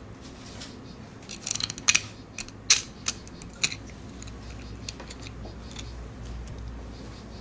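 Sharp clicks and light knocks of a partly built Makeblock robot's aluminium beams, acrylic plate and parts being handled and turned over on the table: a quick cluster about a second and a half in, then a few single clicks up to nearly four seconds in. A faint steady low hum lies underneath.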